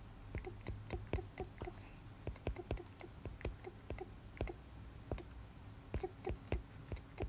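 Quick, uneven taps on an iPad's glass screen, several a second, as dots are dabbed onto a drawing.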